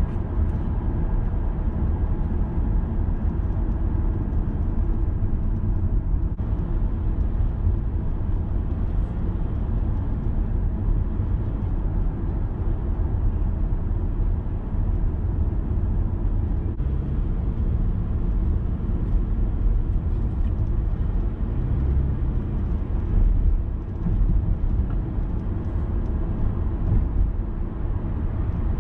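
Car driving through city traffic, heard from inside the cabin: a steady low rumble of engine and tyre noise.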